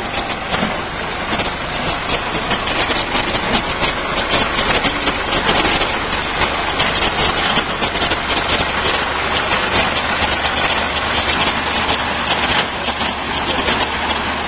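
A vehicle engine idling steadily in a works yard, with a low hum that becomes stronger about halfway through.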